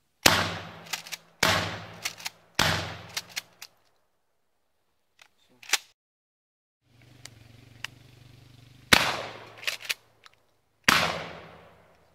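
12-gauge Remington shotgun fired five times: three shots about a second apart, then two more about two seconds apart several seconds later. Each shot is a sharp blast with a decaying echo, with light clicks between shots.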